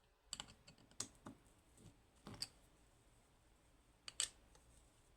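A few sparse, sharp small clicks and taps of lock parts and tools being handled while the lock is taken apart, with a close pair of clicks about four seconds in, over near silence.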